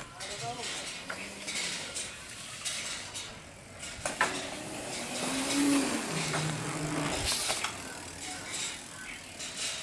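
Child's small electric dirt bike riding along a paved path, its drive rattling and clicking as it goes, with a brief low motor hum in the middle.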